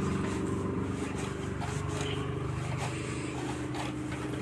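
A steady low mechanical hum, with a few faint small clicks.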